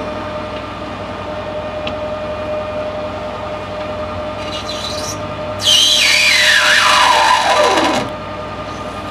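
Metal lathe running with a steady whine. About five and a half seconds in, a carbide-insert tool takes a facing cut across the end of a brass bar for about two and a half seconds: a loud cutting squeal whose pitch falls steadily as the tool moves in toward the centre, then stops.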